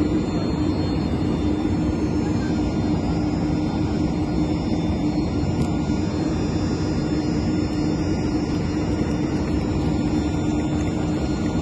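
Steady machine drone from airport ramp machinery beside a parked Airbus A330, with a constant mid-pitched hum over even noise.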